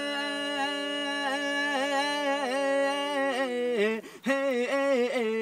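A man's unaccompanied voice singing a devotional Punjabi kalam, holding one long drawn-out note with small wavering turns. About four seconds in it breaks off briefly and then comes back.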